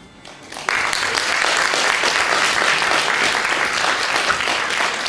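Audience applauding. The clapping breaks out suddenly just under a second in and keeps up steadily.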